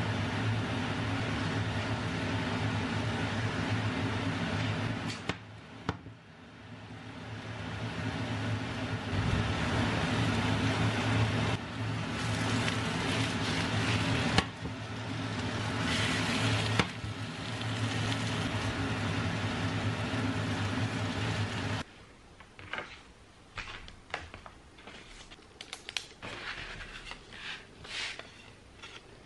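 Steady electrical motor hum of a running appliance, briefly dropping away about five seconds in and then returning, until it cuts off about 22 seconds in; after that only light scattered clicks and taps.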